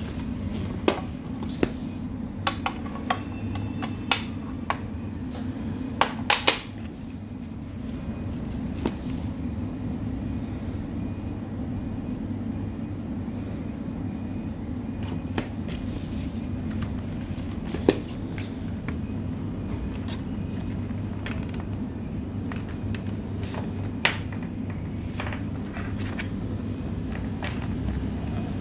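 Sharp plastic clicks and knocks as camcorder accessories (a battery or lamp unit, an AC adaptor with its coiled cord) are handled and set down, many in the first several seconds and a few more later, over a steady low hum.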